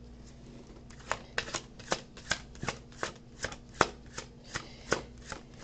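A deck of tarot cards being shuffled by hand. From about a second in, the cards give short, regular strokes, about two or three a second.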